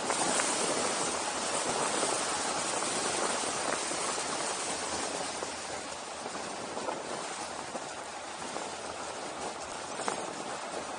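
Wind rushing over the camera microphone during a fast downhill ride: a steady, noisy rush, louder in the first half, with a couple of faint ticks near the end.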